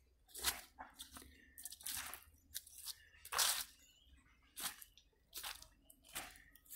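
Footsteps crunching through dry bamboo leaf litter, a step every half second to a second at an uneven pace.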